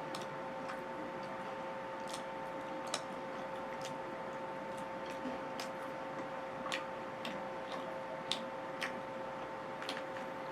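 Close-up eating sounds: a dozen or so sharp, irregular mouth clicks and smacks from chewing, over a steady low electrical hum.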